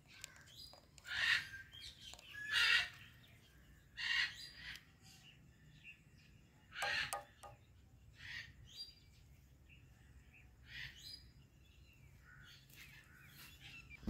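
Parakeet giving short chirping calls, about six in all. The calls are louder in the first seven seconds and fainter after that.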